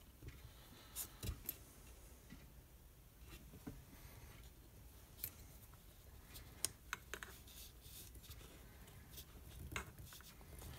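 Faint, scattered clicks and light taps of small chainsaw engine parts being handled and fitted by hand on a workbench.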